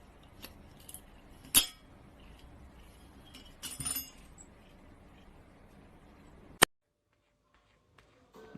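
Low room noise with a sharp clink about a second and a half in and a short clattering rattle near four seconds, then another click and the sound cuts to dead silence.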